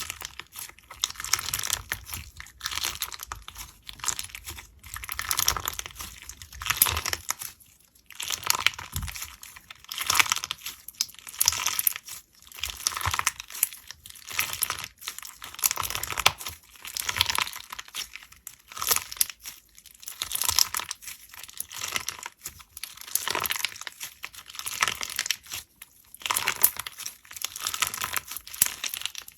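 Hands squeezing and pressing slime, giving crackly, crinkling pops in repeated bursts about one every second or two.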